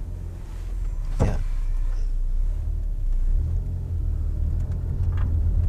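Car engine and tyre rumble as a car drives slowly, a low steady drone that picks up over the first second, with one brief higher sound about a second in.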